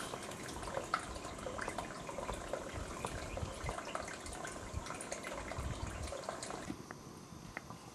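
Faint water trickling and dripping over rock: a low steady splash with many small irregular drips, easing a little near the end.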